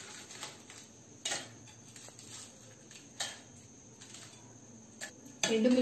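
Dried red chillies dropped by hand into a steel mixer-grinder jar: three short, sharp ticks about two seconds apart, with faint rustling between them.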